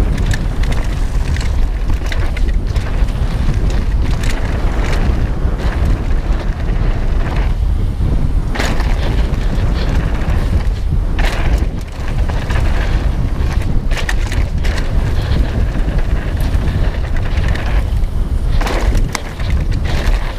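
Wind buffeting a GoPro's microphone as a mountain bike descends a dirt forest trail at speed, under a steady loud rumble, with frequent knocks and rattles from the bike over bumps and roots. The rumble eases briefly twice, about halfway through and near the end.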